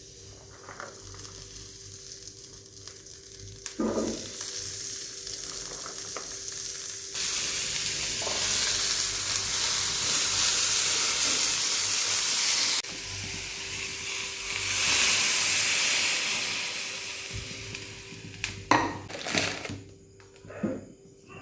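Food frying in a hot pan: a steady sizzle that swells and drops off abruptly a few times, with a couple of short knocks, one about four seconds in and one near the end.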